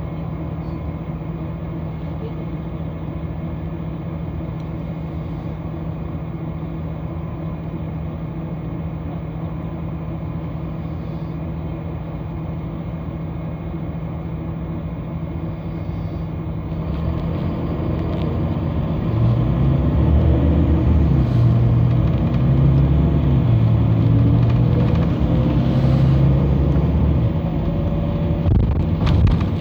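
City bus engine and road noise heard from inside the bus: a steady hum, growing louder about 17 seconds in as the engine note rises and shifts, then easing off near the end.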